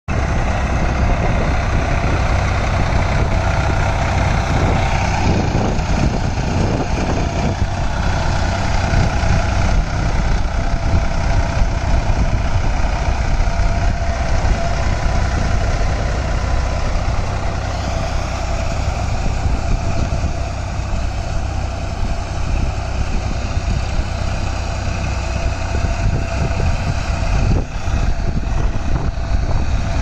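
Sonalika tractor's diesel engine running steadily under load as it drags a rotary tiller through flooded paddy mud, with the tiller churning the mud and water.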